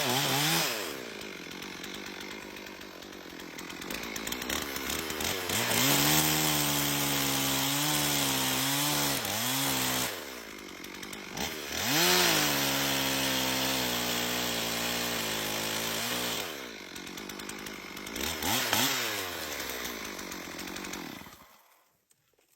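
Chainsaw running at full throttle in long stretches, cutting through wood, with the revs dropping back toward idle between cuts three times. The engine dies away near the end.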